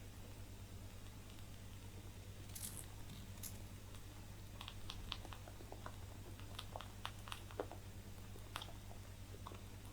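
Rabbits chewing dry hay: quick crisp crunches and snaps of stalks, coming in irregular clusters over a steady low background hum.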